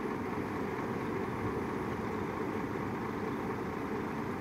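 Crane truck's diesel engine running steadily, powering the truck-mounted hydraulic crane during a lift of a heavy cabin.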